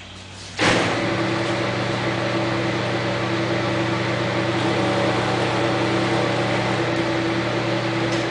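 Precision Matthews PM-1340GT metal lathe running: a steady hum and whine over a hiss. It starts suddenly about half a second in and begins to wind down at the very end.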